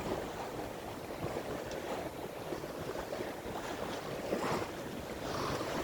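Steady rush of water along the hull of a sailing yacht under way, with wind on the microphone.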